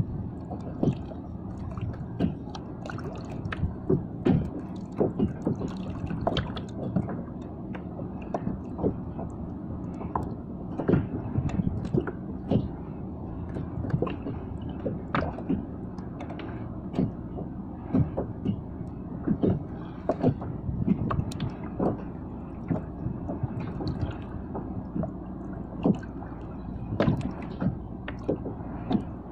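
Small waves lapping and slapping irregularly against the hull of a small fishing boat.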